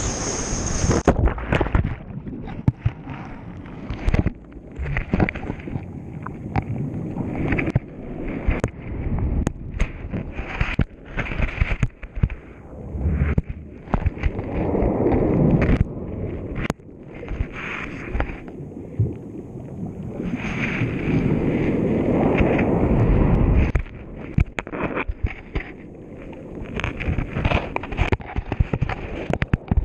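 Underwater sound picked up by a GoPro in its housing as it is tossed and dragged along the sea bed: a muffled, surging rumble of moving water with frequent sharp knocks and clicks against the camera. The sound turns dull about a second in, and it swells into two long surges in the middle.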